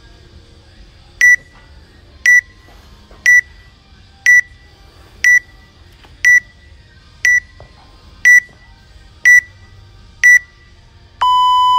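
Workout interval timer counting down to the start: ten short high beeps one second apart, then a longer, lower start beep near the end.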